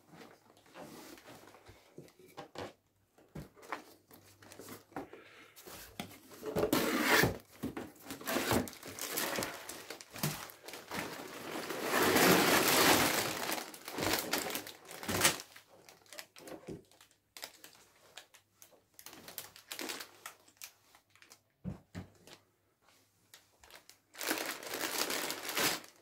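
Sealed plastic bags of LEGO parts crinkling and rustling in irregular bursts as they are taken out of a cardboard box and set down, with scattered light knocks; the longest, loudest rustle comes about halfway through.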